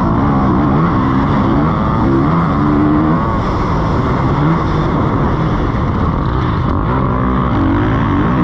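Motocross bike engine at full race pace, heard from on board, its pitch climbing and dropping back several times as the rider accelerates and shifts up.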